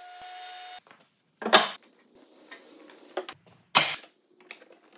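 A router running steadily with a high whine as a board is fed past the bit to cut spline grooves, cut off suddenly under a second in. Then wooden splines are fitted into the grooves: two loud wooden knocks about two seconds apart, with lighter taps and rubbing of wood on wood between them.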